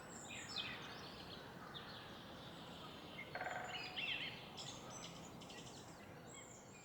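Several birds chirping and calling in short overlapping phrases, with a brief rapid rattle about halfway through, over a steady low hum of distant city noise.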